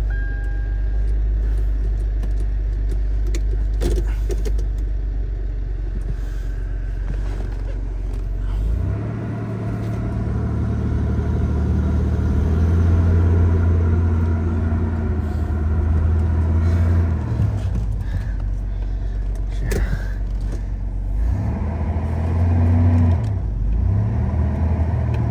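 Toyota 4Runner engine running just after a cold start, idling steadily at first, then revving up and easing off twice from about nine seconds in as the truck is driven, with a few brief knocks.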